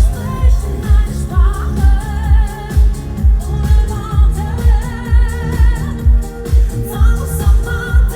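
Live dance-pop music from a concert PA: a steady kick drum about twice a second under a singing voice holding long, wavering notes.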